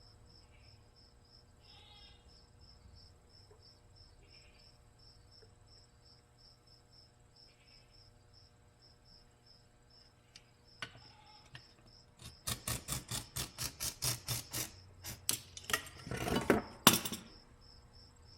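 A cricket chirping steadily, about four high chirps a second. Over it, from about twelve seconds in, comes a run of loud, sharp clicks at a similar pace, with a short louder scraping rush near the end.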